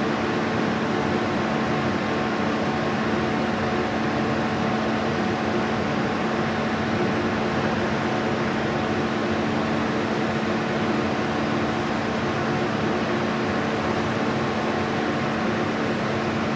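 Handheld gas-cartridge blowtorch burning steadily, a constant hiss with a low hum, its flame held on a block.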